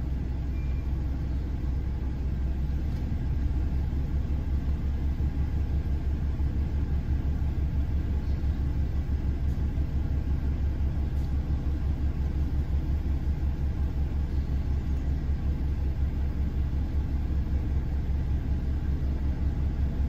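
Pickup truck engine idling, heard from inside the cab: a steady low rumble with a fast, even pulse.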